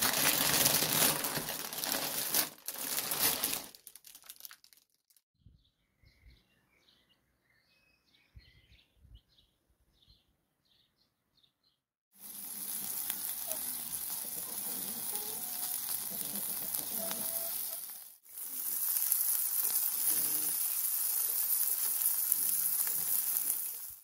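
Plastic bread bag crinkling as it is handled for the first few seconds, then faint bird chirps. From about halfway, mici (minced-meat rolls) on a charcoal grill sizzle in a steady hiss, broken briefly once.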